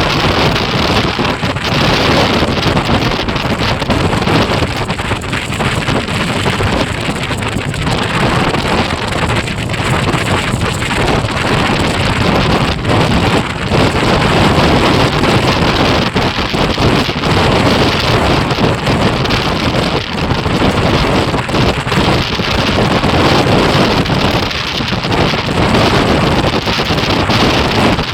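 Heavy wind buffeting a microphone on a moving motorcycle: a loud, steady rushing noise with no clear engine note.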